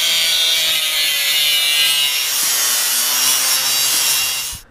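Makita 4-inch angle grinder with a thin metal cutoff wheel cutting through mild steel flat bar: a steady loud grinding hiss with a high whine from the spinning wheel. It cuts off suddenly near the end.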